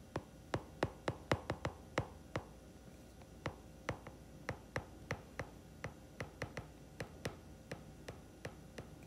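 Stylus clicking against a tablet's screen while handwriting words: an irregular series of sharp, faint clicks, about four a second, thickest in the first couple of seconds.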